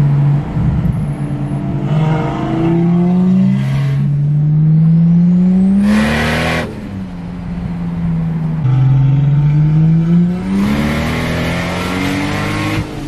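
A performance car's engine revving hard under full throttle, its pitch climbing through the gears with a drop at each upshift. About six seconds in, a brief loud rush comes as the revs fall away as if the throttle is lifted, then the engine pulls up through two more gears.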